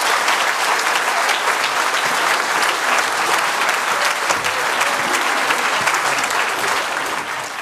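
Theatre audience applauding, a dense, steady clapping that begins to die down near the end.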